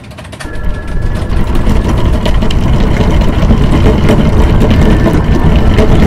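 A loud, deep rumbling drone from a horror sound design that swells up over about the first second and then holds steady, with a crackling glitch noise over it.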